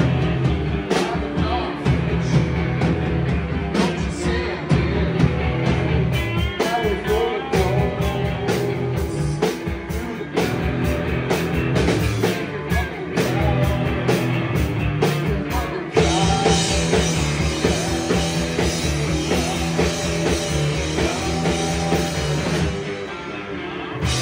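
Rock band playing live, with electric guitars, bass and drums, and a voice singing. About two-thirds of the way through, the sound gets brighter and fuller.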